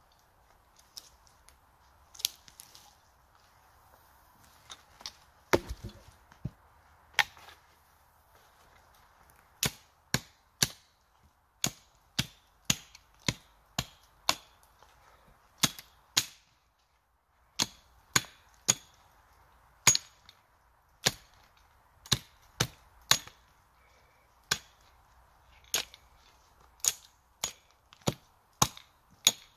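Hatchet chopping into a thin standing tree trunk, each blow a sharp knock of steel biting wood. A few scattered strikes and one dull thump come first, then steady chopping at about two blows a second from about a third of the way in.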